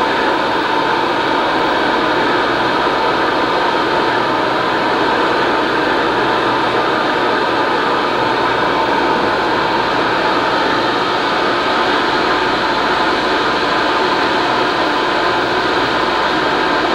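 Fishing boat's engine running steadily: an even mechanical drone with hiss, no breaks or changes.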